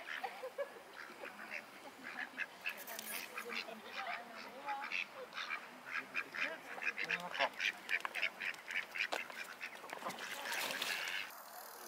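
Ducks quacking: a busy run of short, repeated calls, several a second, that picks up about two seconds in and carries on most of the way through.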